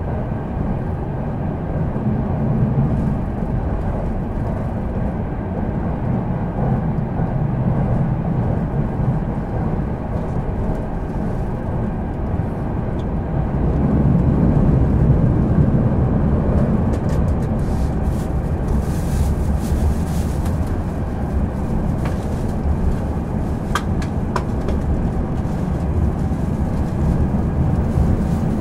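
Inside a JR Marine Liner electric train running at speed: a steady low rumble of wheels on rail and running gear. It swells for a few seconds about halfway through, and a few faint clicks come near the end.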